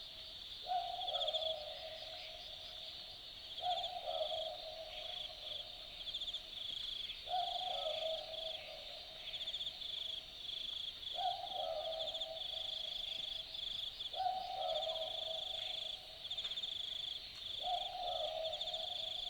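Australian Boobook (mopoke) owl giving its typical two-note 'boo-book' call six times, about every three to four seconds. A steady, high, pulsing trill runs underneath the whole time.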